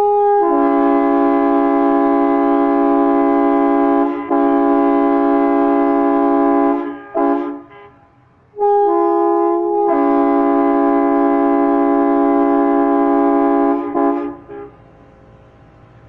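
Train air horn, fed from an air compressor, sounding two long blasts of about seven seconds each. Each blast opens on a single note before the full multi-note chord comes in, and each stutters as it cuts off.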